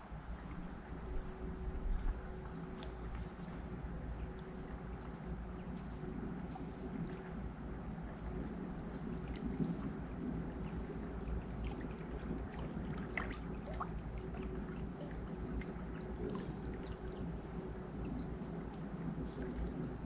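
River water flowing with a steady rush, with many short, high chirps of small birds all through.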